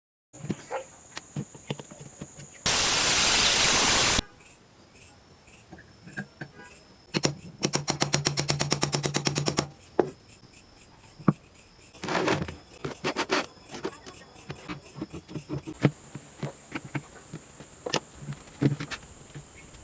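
Workshop tool noises: scattered knocks and clicks, a loud burst of power-tool noise lasting about a second and a half, then a run of rapid, even clicking over a low hum for about two and a half seconds.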